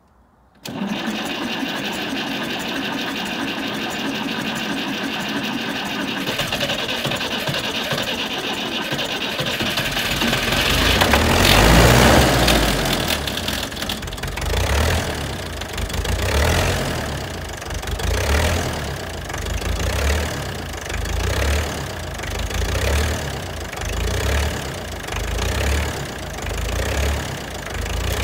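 Ferguson TEF-20's four-cylinder diesel engine turned over on the starter on a cold start for about ten seconds, catching about eleven seconds in with a burst of revs. It then runs unevenly, its note rising and falling about once a second as it settles.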